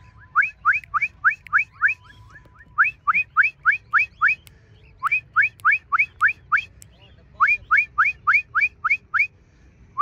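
A person whistling a rapid string of short rising whistles, about four a second, in four runs of six or seven with brief pauses between: a recall whistle to call free-flying pet cockatiels back.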